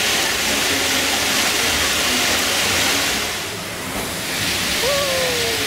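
Steady hissing rush of the ride's water fountains spraying and splashing into the pool at its base. It dips briefly just before the middle, and a few short falling, whistle-like tones come near the end.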